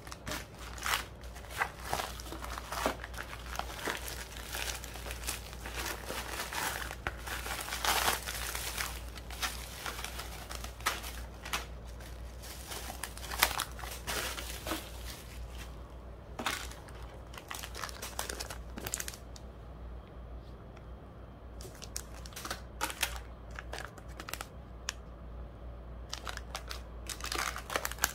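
Plastic packaging crinkling and rustling as bubble-wrap mailers and small clear plastic bags are handled and opened. The crinkling is dense for about the first two-thirds, then thins to scattered crackles.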